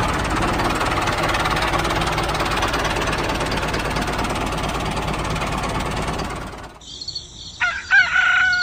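Tractor engine running steadily, cutting off about seven seconds in. Near the end, birds calling.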